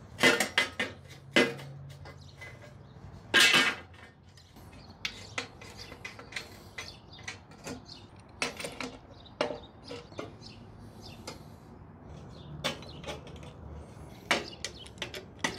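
Steel angle-iron rails being handled and set along a concrete ledge: a run of metal clanks and knocks, loudest in the first four seconds, followed by lighter clinks and taps.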